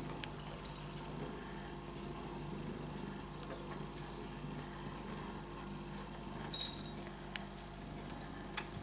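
Quiet indoor room tone with a steady low hum and a few light clicks and taps.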